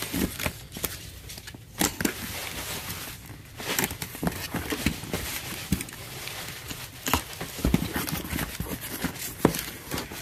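Cardboard shipping box being opened: an orange box cutter scraping and slitting the packing tape, then the cardboard flaps pulled open, in a string of irregular scrapes, taps and rustles.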